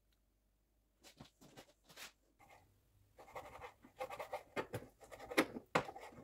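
Kitchen knife cutting through a fish fillet on a plastic cutting board: faint, irregular taps and scrapes of the blade against the board, sparse at first and busier after about three seconds.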